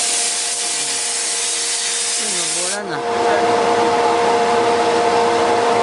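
Powerful duct-cleaning vacuum or air blower running: a loud, steady rush of air with a steady whine. The rush dips briefly about three seconds in, then picks up again.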